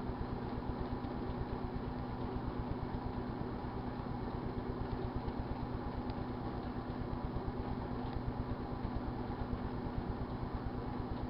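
A 1978 GE Dual Wave microwave oven running: a steady hum with a fast low flutter.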